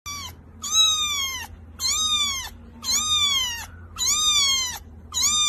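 Young kitten meowing over and over, about once a second: five high-pitched meows, each rising and then falling in pitch.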